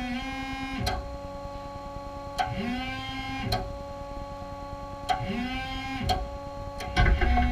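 Clark electric forklift moving, with a steady motor whine and a repeating squeal that rises in pitch and holds about every two and a half seconds, along with regular clicks: the sign of something binding up in the truck as it moves.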